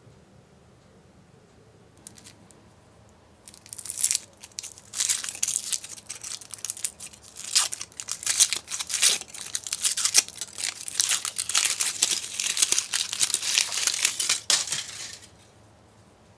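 Thin aluminium foil wrapper of a chocolate surprise egg crinkling and tearing as fingers peel it off the egg. The rustling starts a few seconds in and stops about a second before the end.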